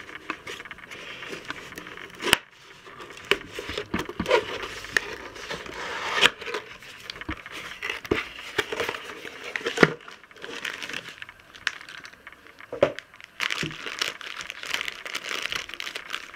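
A cardboard slime-kit box being opened by hand: paperboard tearing and scraping with irregular crackling and a few sharp knocks, then a plastic bag of supplies crinkling near the end.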